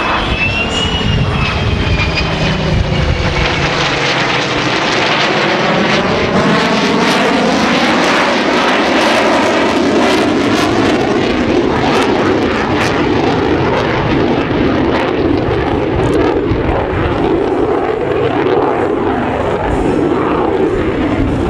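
Loud jet noise from an F-35A's F135 turbofan, mixed with the piston engines of a P-51D Mustang and an A-1 Skyraider, as the formation flies past. A sweeping, phasing whoosh runs through the sound in the middle of the pass, then it settles into a steady rumble.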